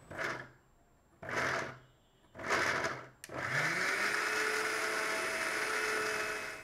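Sujata mixer grinder blending chunks of fresh pineapple into a paste. The motor is pulsed three times in quick short bursts, then from about three seconds in it runs steadily, its pitch rising as it spins up and then holding.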